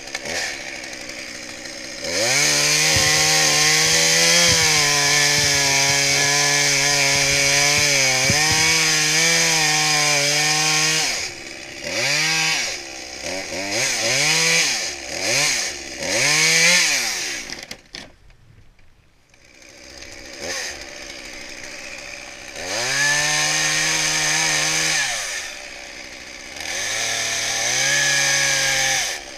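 Two-stroke chainsaw revving to full throttle and held there for several seconds, then a run of short throttle blips. It almost drops out about eighteen seconds in, runs at a lower idle, and revs up twice more near the end.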